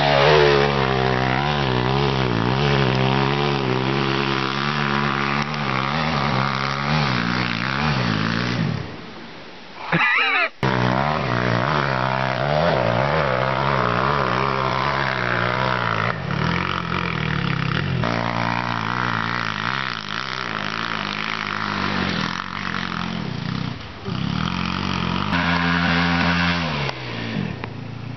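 Dirt bike engines revving hard and easing off on a steep dirt hill climb, the pitch climbing and falling with the throttle. The engine sound drops out briefly about ten seconds in, then picks up again.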